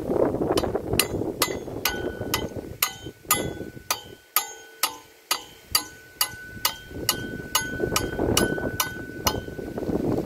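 Hammer striking a welded metal trellis frame on top of a concrete post, about twenty even blows at roughly two and a half a second, each with a metallic ring.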